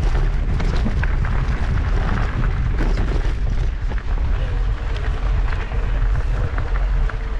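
Wind buffeting the microphone of a mountain bike ride-along camera, a deep steady rumble, with the rattle of the bike and scattered clicks and knocks as the tyres run over the dirt singletrack.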